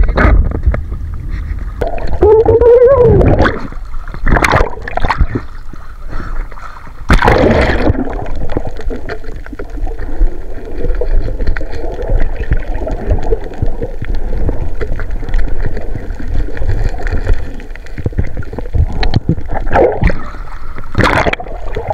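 Water sloshing and gurgling close around the microphone, with a few sharp splashes, about four seconds in, again at seven seconds, and near the end.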